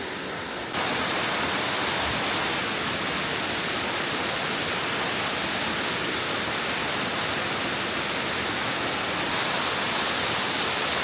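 Waterfall's falling water rushing as a steady, even hiss with no pitch to it. It gets louder just under a second in.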